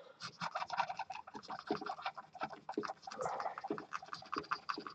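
Rapid, irregular scratchy rubbing as the contact fingers of an Atari 1200XL keyboard circuit board are scrubbed clean with acetone.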